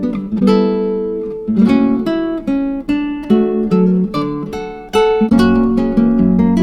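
Background music: acoustic guitar, plucked and strummed notes in an even rhythm.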